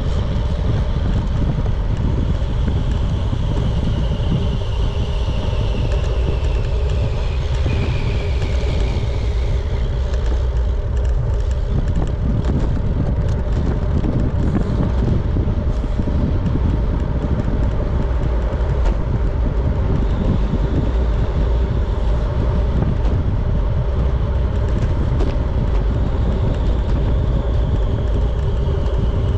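Steady wind buffeting and road rumble on a camera carried by a road cyclist, with a faint whine that slides down in pitch between about four and ten seconds in.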